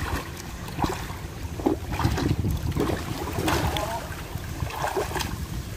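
Splashing in shallow water as a child kicks and paddles, in irregular bursts, over a steady rumble of wind on the microphone.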